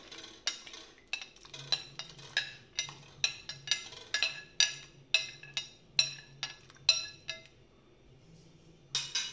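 A steel spoon clinking against a cut-glass plate, two or three quick ringing clinks a second, as banana slices are scraped off into the pot. It stops for about a second, then there is a louder pair of clinks near the end.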